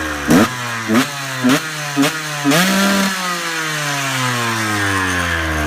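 KTM 125 EXC's single-cylinder two-stroke engine being blipped on the throttle four times in quick succession, about twice a second. A longer rev follows, and then the revs drop slowly and steadily back down.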